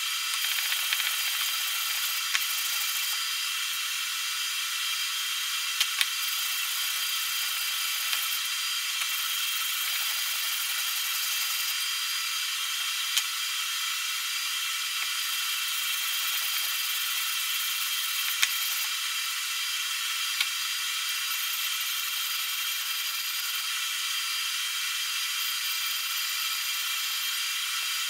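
A steady hiss with a few isolated sharp clicks, metal parts of a hand plane being handled.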